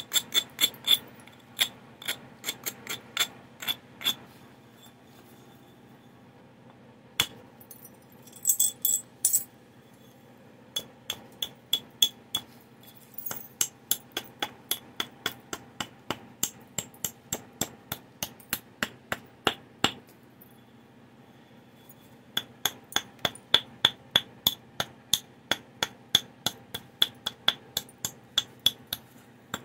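Antler billet tapping along the edge of a stone preform in rapid light strokes, about two to three sharp clicks a second, in runs broken by short pauses. It is antler percussion, turning the edge of a Clovis point.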